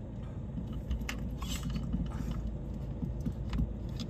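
Scattered small plastic clicks and rattles of a phone being refitted in its car holder, over the steady low rumble of the car's engine and air conditioning running.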